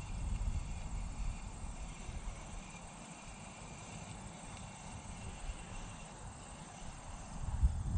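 Faint, steady chirring of insects under an uneven low rumble of wind on the microphone, with a louder low thump near the end.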